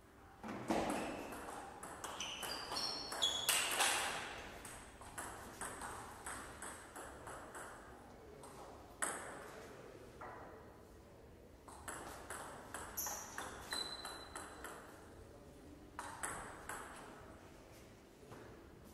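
Table tennis ball clicking off rackets and bouncing on the table in quick runs of sharp ticks during rallies, with single bounces between points. A few short high squeaks come from sneakers on the hall floor.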